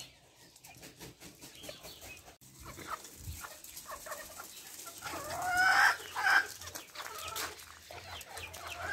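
Backyard chickens clucking, with a louder run of short calls about five to six and a half seconds in.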